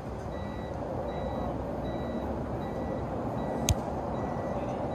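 A vehicle's reversing alarm beeping steadily, about two beeps a second, over a steady background hum. About three-quarters of the way in comes one sharp smack, a volleyball being hit.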